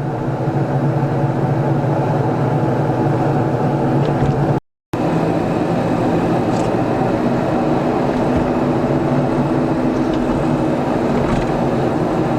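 Car engine and tyre noise heard from inside the cabin while driving, a steady drone. The sound drops out completely for a moment about five seconds in.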